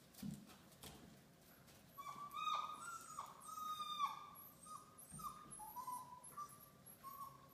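Labradoodle puppies whining: a quick string of short, high whines, several dropping in pitch at the end, starting about two seconds in, after a soft thump near the start.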